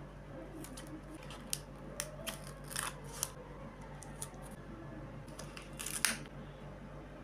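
Short rustles and crinkles of paper and plastic sticker sheets being handled as stickers are laid onto a journal page, scattered irregularly, with the loudest crinkle about six seconds in.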